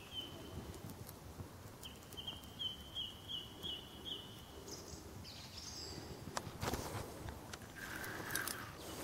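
A bird calling faintly outdoors in a quick run of about six short, repeated notes, with some rustling and a few clicks near the end.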